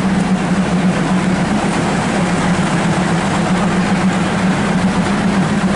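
Diesel train idling at the platform: a steady engine hum over constant mechanical noise.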